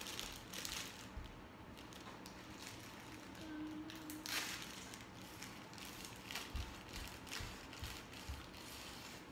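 A thin plastic bag crinkling and rustling as it is handled and cut open with scissors, in short irregular bursts, the loudest about four seconds in.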